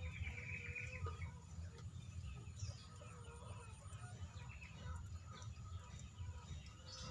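Birds calling: scattered short chirps on and off over a steady low rumble.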